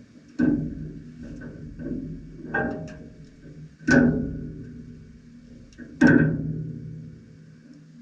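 Music: slow struck or plucked notes, four strong ones each ringing out over a steady low tone.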